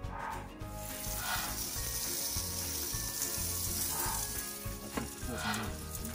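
Raw pizza dough sizzling as it lands on the hot grates of a Weber gas grill, a steady hiss starting about a second in, with soft background music underneath.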